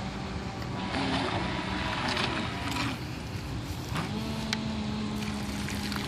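Whine of a homemade radio-controlled model ship's small 12 V brushed electric motors, the pitch shifting as the throttle changes. From about four seconds in a steady hum sets in as the bow water-cannon pump runs.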